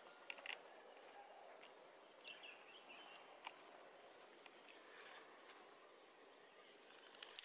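Near silence: a faint, steady high insect buzz, with a few faint clicks scattered through it.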